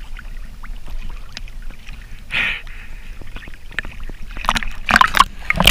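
Sea water lapping and splashing against a camera held right at the water line, over a low muffled rumble. A few louder splashes come near the end.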